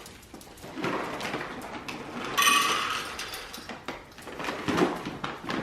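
A dog handling and crunching its food: scattered sharp clicks and rustles, with a brief high squeak about two and a half seconds in.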